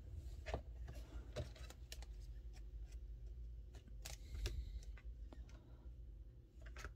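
Rigid clear plastic card holders being picked up, slid and set down on a playmat: faint, scattered clicks and taps, a little louder about four seconds in and near the end, over a low steady hum.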